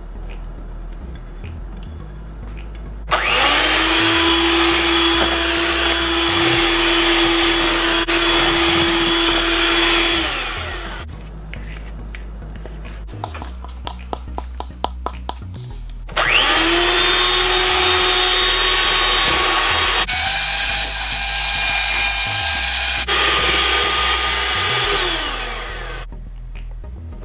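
Electric hand mixer beating cake batter in two long runs. Each time it whines up to speed, holds steady for several seconds, then winds down. The second run shifts pitch partway through.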